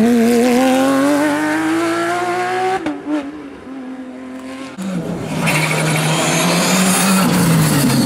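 Porsche 911 rally car's flat-six accelerating hard past, its pitch climbing steadily, then lifting off and fading about three seconds in. About five seconds in, a Škoda Fabia R5 rally car's turbo four-cylinder arrives loud and holds a steady pitch.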